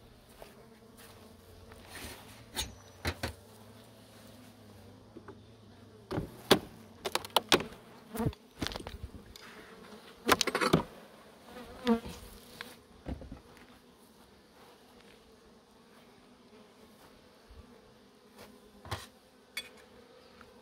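Honeybees buzzing steadily around an opened hive, with scattered sharp knocks and clicks, loudest around the middle, from the hive and its frames being handled.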